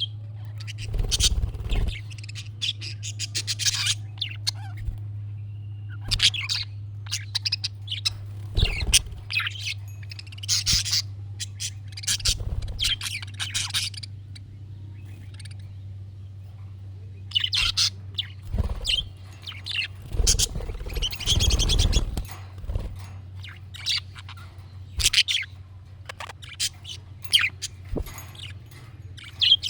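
Budgerigar chattering and warbling in quick bouts of chirps, falling silent for a few seconds about midway before starting again. A steady low hum runs underneath, with a few dull low thumps.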